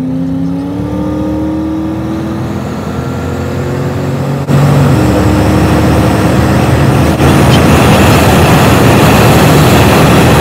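Car engine pulling under acceleration, its note rising slowly over the first few seconds. After an abrupt cut about halfway through, it gives way to louder, steady engine and road noise, which steps up again a couple of seconds later.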